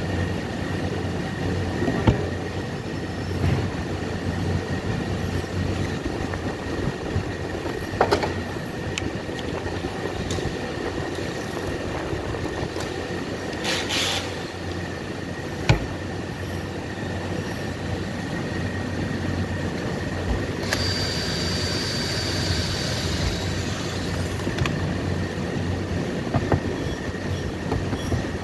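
Steady workshop hum with a thin high tone, broken by a few sharp knocks and clicks as the chipboard panels and tools are handled. About two-thirds of the way through, a brighter hiss with a high whine comes in for about four seconds, then stops.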